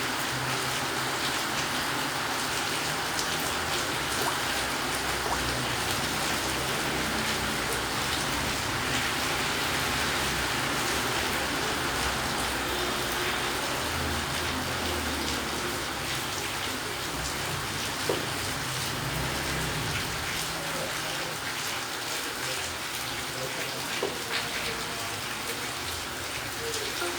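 A steady, even hiss of noise with faint low rumbling underneath and an occasional soft click.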